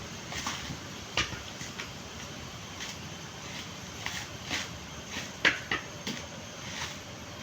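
Coconut being husked by hand: a run of irregular short, sharp knocks and cracks, the loudest about five and a half seconds in.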